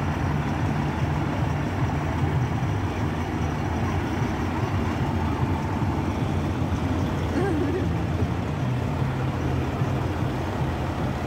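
Fire truck's diesel engine running close by, a steady low engine sound, as the aerial ladder truck moves slowly past.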